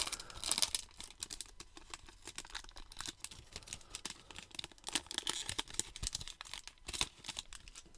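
A baseball-card pack's wrapper being torn open and crinkled by hand, a dense run of small crackles and ticks.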